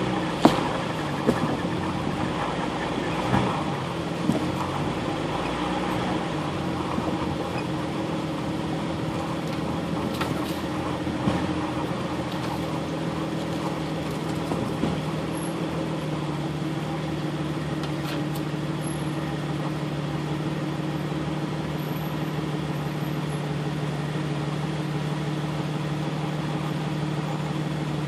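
Off-road vehicle engine running at low speed as it crawls along a rough dirt trail, with a few sharp knocks and rattles in the first few seconds. Later the engine settles into a steady drone.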